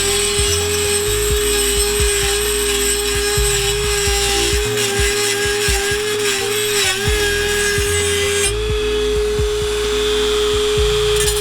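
Dremel 4000 rotary tool with a sanding pad grinding down the cracked end of an exhaust pipe, a steady high motor whine over rough metal scraping, the pitch sagging briefly about two-thirds of the way through as it bears down. The grinding removes the metal where the cracked ends tap together and rattle.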